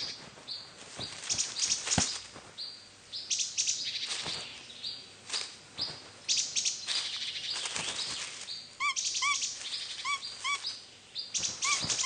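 Small forest birds chirping and twittering with quick, high notes. From about nine seconds in, a bird gives short, arched calls, mostly in pairs, repeated several times.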